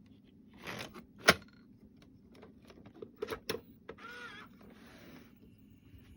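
Plastic clicks and clatter of a VHS cassette being pushed into a 1988 RCA CC310 camcorder's cassette holder and the compartment closed. The loudest is a sharp snap about a second in, with further small clicks and a short rushing noise around the four-second mark.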